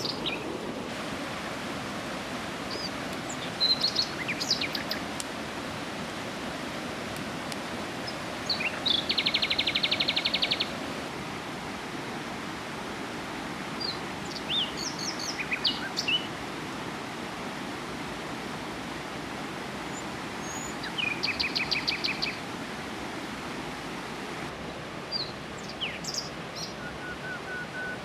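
Steady rush of a river flowing, with birds calling over it: scattered chirps and two fast, rattling trills, about nine seconds in and again about twenty-one seconds in.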